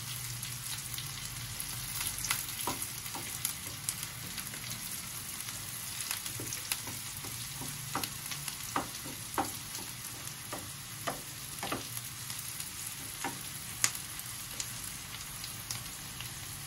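Sliced onions frying in a nonstick pan, a steady sizzle with scattered small clicks and taps as a wooden slotted spatula stirs them. The onions are being sautéed until they brown as the base of a curry.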